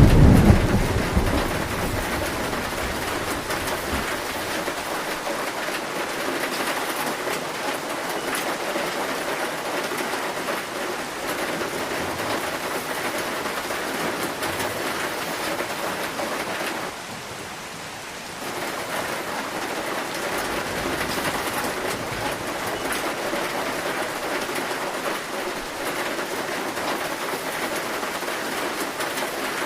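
Heavy rain falling steadily on a zinc roof. A low roll of thunder opens it and dies away over about two seconds. About 17 s in the rain dips quieter for a second or so, then comes back.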